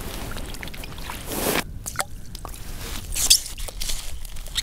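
Hands splashing and sloshing the water of an ice-fishing hole as a caught lake trout is let go, with a louder splash about one and a half seconds in. There are scattered short knocks and scrapes at the rim of the hole.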